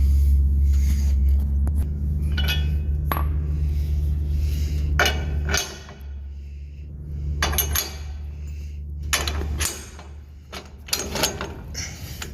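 Clinks and clanks of steel vehicle-lift arms and pads being swung and set into position under a car, over a steady low electric hum that stops twice and starts again partway through.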